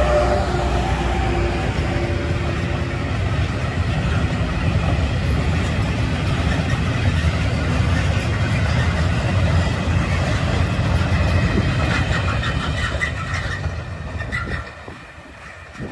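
Vossloh DE12 diesel-electric locomotive passing close by, its engine droning at the start, followed by a long train of heavily loaded flat wagons rumbling steadily over the rails. The rumble falls away sharply near the end as the last wagons pass.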